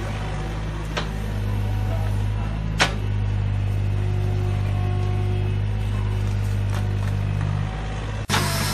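Mini crawler excavator's diesel engine running steadily as it digs, with a few sharp clacks, the loudest about three seconds in, as the bucket works through brick rubble. The sound changes abruptly near the end.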